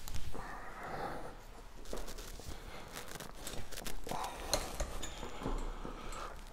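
Rustling of clothing and scattered light metallic clicks and clinks as a person lies back on a weight bench and grips the steel handles of a chest-press machine.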